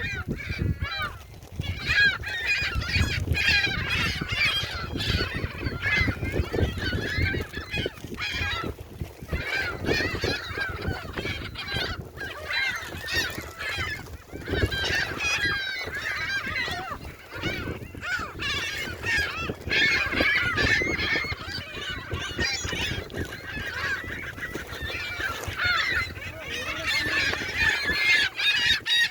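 A flock of gulls calling continuously, many short squawks and cries overlapping, with a low rumble underneath.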